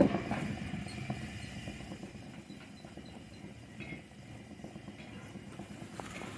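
Belt conveyor running on test, its rubber belt travelling over the squirrel-cage tail pulley and idler rollers: a steady low rumble with irregular clicks and knocks.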